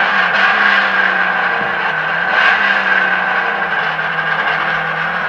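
Traxxas On-Board Audio sound module playing a simulated engine sound through small speakers fitted in an RC truck. The sound is loud and runs steadily, its pitch wavering slightly.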